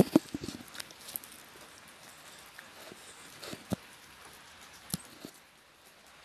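Puppy chewing and gnawing at something between its front paws: scattered small clicks and crunches, most of them in the first second, then a few single ones.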